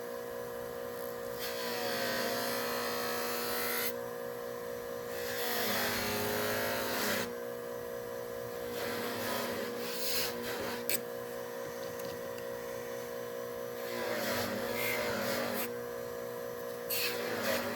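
Small electric power tool running with a steady hum, breaking four times into louder hissing stretches of a second or two with wavering pitch, as it works on an old pocket knife during cleaning.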